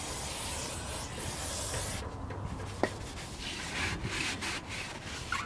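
Aerosol brake cleaner hissing as it is sprayed onto a brake rotor, cutting off about two seconds in. After that comes a rag rubbing and wiping over the rotor and caliper.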